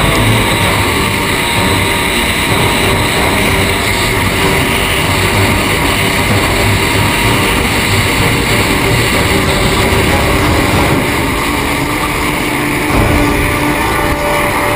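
Racing powerboat's engine running flat out, heard from on board, mixed with the steady rush of wind and water spray. The sound stays loud and even throughout.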